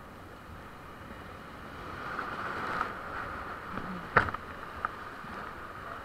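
Rushing whitewater of a grade III river rapid, a steady hiss that grows louder about two seconds in as the raft closes on it. A single sharp knock about four seconds in.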